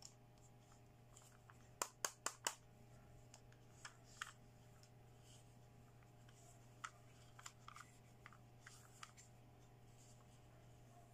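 Small plastic toy pieces being picked up and handled: a quick run of four sharp clicks about two seconds in, then scattered lighter taps and clicks, over a faint steady hum.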